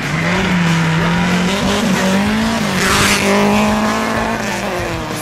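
Rally car engine at high revs passing close on a gravel stage, with a burst of gravel and tyre noise about three seconds in as it goes by. The engine note then climbs as it accelerates away.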